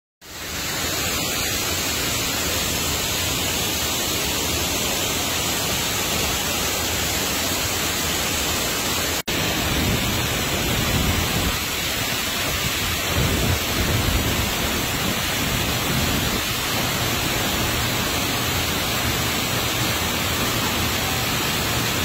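Steady rushing of a tall waterfall, its water pouring down into a pool. About nine seconds in the sound breaks off for an instant and comes back with a deeper rumble.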